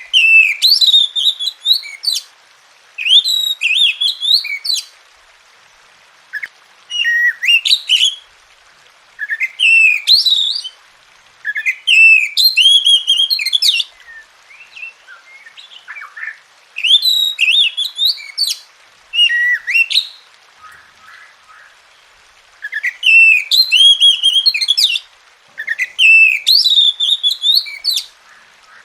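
Oriental magpie-robin singing: loud, varied phrases of sweeping whistles, each a second or two long, repeated with short pauses between them.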